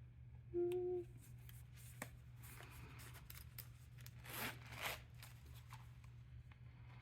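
Packaging being handled while a wallet is unboxed: a short steady tone about half a second in, then soft rustling and scraping swishes, loudest around four to five seconds in, over a steady low hum.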